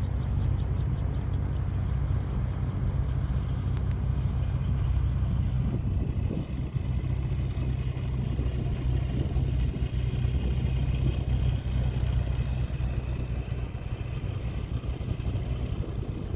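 AutoGyro MTO Sport gyroplane's engine and pusher propeller running steadily on the ground after landing, a continuous low drone with an even pitch.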